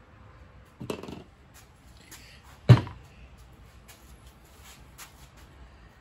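Tools and parts being handled on a workbench during a swing arm bearing job: a short clatter about a second in, one loud sharp knock with a brief ring near the middle, then a few light clicks.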